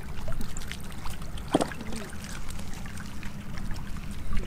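Shallow muddy water splashing and sloshing as fish are grabbed by hand in the puddles, a quick run of short splashes with a stronger one about one and a half seconds in.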